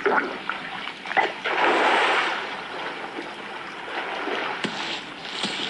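Water splashing and sloshing as crocodiles swim and thrash in shallow water, with a louder surge of splashing about two seconds in.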